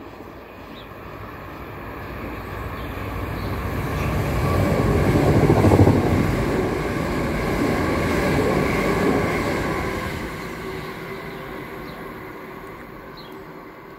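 A train passing close by: the rumble of its wheels on the track swells to a peak about six seconds in, then fades as it moves away.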